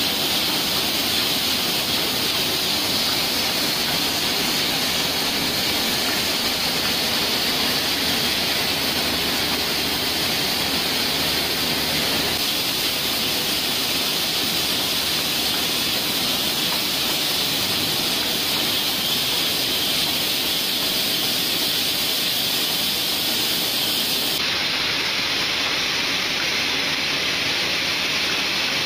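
Steady hissing, rushing machine noise of a running PET bottle juice filling line, with its rotary star wheels and filler turning. The hiss thins in the upper range a few seconds before the end.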